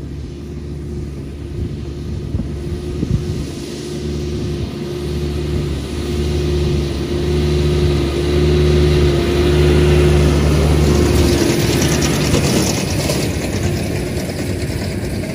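John Deere 6145 tractor's engine running steadily under load as it pulls a large square baler, growing louder as it comes close. Near the end the AGCO 7433 Cutter baler passes close by with a broad rattling rush.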